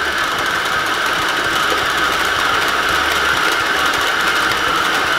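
Old electric stand mixer running steadily, its motor whirring as the beater turns slime in the bowl.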